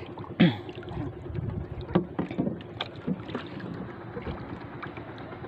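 Small wooden outrigger paddle boat rocking on the water: water sloshing against the hull, with several irregular knocks of wood in the first few seconds, over a steady low hum.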